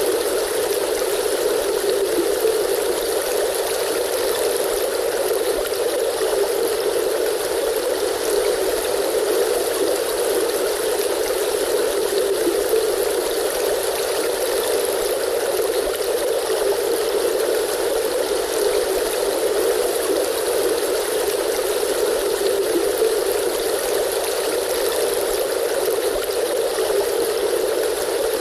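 River stream flowing, a steady, unbroken rush of water.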